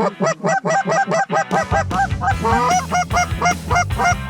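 Canada geese honking, many rapid overlapping calls of an incoming flock. About a second and a half in, a steady low drone sets in underneath.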